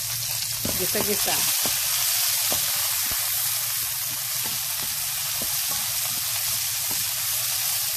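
Carrots, green bell pepper and onion stir-frying in hot oil in a pan: a steady sizzle, with a few light clicks from the spatula turning the vegetables.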